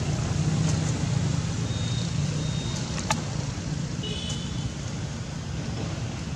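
A steady low hum, like a vehicle engine running, with a sharp click about three seconds in and a couple of brief high-pitched chirps.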